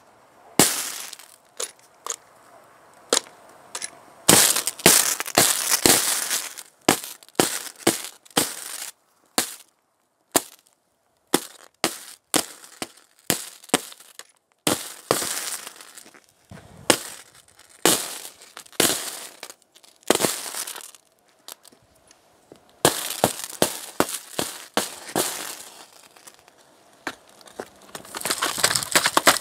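A laptop burning after being shorted across a 48 V bank of four lead-acid batteries in series, spitting sparks with sharp cracks and pops at irregular intervals. Denser runs of crackling come a few seconds in, again past the middle, and near the end.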